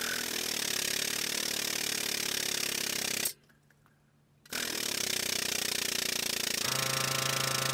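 Air-over-hydraulic pump on a 20-ton shop press running steadily as the ram presses a spherical bushing into a Nissan 300ZX rear upright. It stops for about a second a third of the way in, then starts again, and a low steady hum joins near the end.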